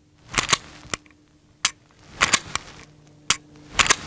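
A string of sharp pistol shots at irregular intervals, about nine reports in four seconds, some close together in pairs.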